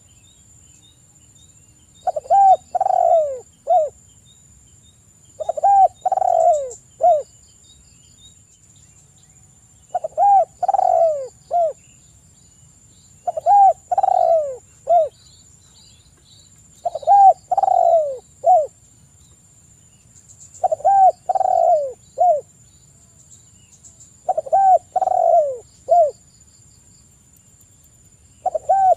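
Spotted dove (tekukur) cooing: a phrase of two joined notes and a short, separate last note, repeated every three to four seconds, about eight times.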